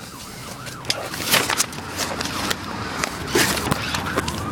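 Irregular knocks, clicks and rustling from a handheld camera being moved and handled, with a thin rising whine starting near the end.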